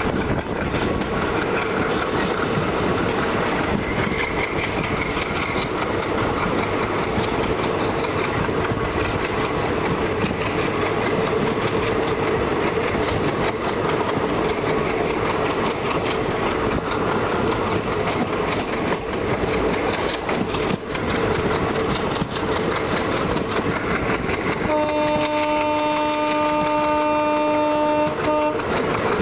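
Diesel locomotive chugging hard under load as it hauls the train round a curve, a steady dense rumble heard from a coach window. About four seconds before the end a train horn sounds one long chord-like blast.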